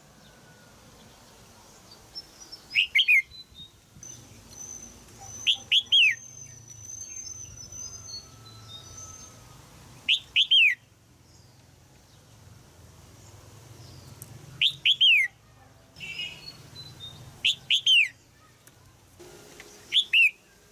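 Female red-whiskered bulbul in a cage calling with sharp, falling chirps in quick groups of two or three, repeated every three to four seconds. These are the calls used to stir young males into song. A faint, thin, high whistle runs under it for a few seconds.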